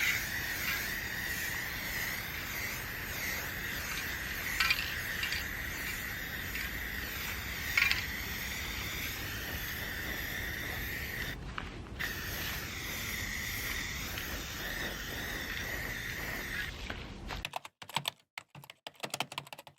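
Aerosol spray-paint can hissing steadily as it is sprayed through a clip-on trigger handle. The hiss breaks off briefly a little past halfway, a couple of light clicks come through, and the hiss stops a few seconds before the end.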